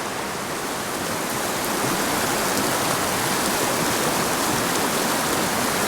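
Mountain creek's fast current rushing steadily over rocks, a constant hiss of running water that grows a little louder about a second and a half in.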